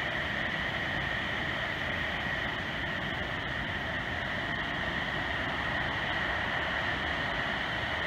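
Steady rush of water from a small waterfall and stream.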